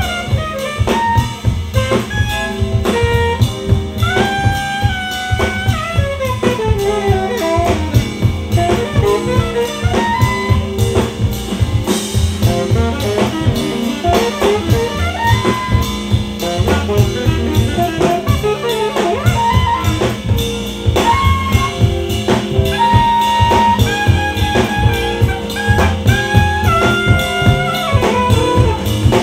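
Live alto saxophone solo over a jazz-funk band's drums, bass and keyboards, with a long falling run about six seconds in and held high notes later on.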